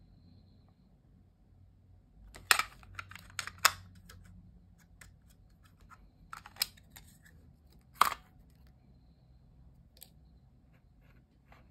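Handling sounds from a Logitech MK470 keyboard and mouse being unpacked: scattered sharp plastic clicks and taps. A quick cluster comes about two and a half seconds in, a couple more just after six seconds, and a single loud click near eight seconds.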